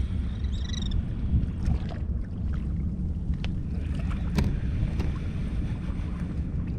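Wind rumbling on the microphone over sea water sloshing, with scattered small knocks and splashes. A brief, high gull call comes about half a second in.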